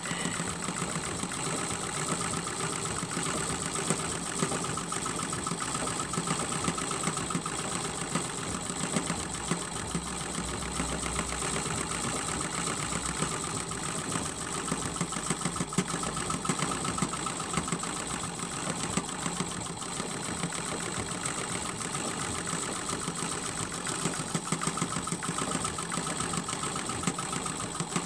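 Sewing machine running steadily at speed, its needle stitching through a layered quilt with a fast, even rattle that does not let up.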